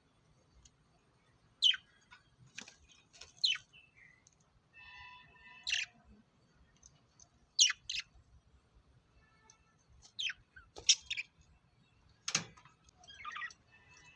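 Lovebirds giving short, sharp chirping calls, each a quick downward sweep, about a dozen spread irregularly with gaps between them, and a brief held buzzy note about five seconds in.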